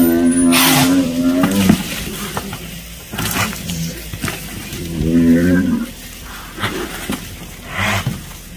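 Gaur (Indian bison) bellowing: a long drawn-out low call lasting until about a second and a half in, then a shorter one about five seconds in. Short scuffling crackles come between the calls.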